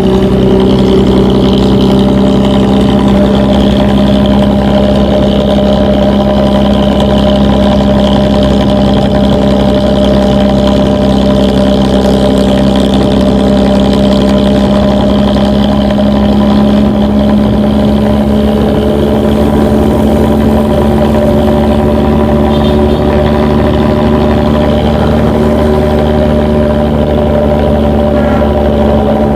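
Intercity bus's diesel engine running steadily through a loud, growling exhaust, its pitch holding nearly level.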